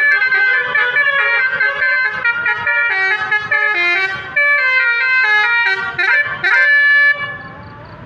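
A car-mounted basuri horn playing a telolet-style melody: several horn tones sounding together and stepping in pitch, with a brief sliding passage near the end. It is loud and cuts off suddenly about seven seconds in.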